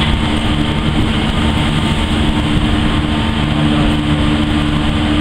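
Car ferry MV Loch Alainn's engines running with a steady low drone made of several fixed hum tones, over an even rushing noise.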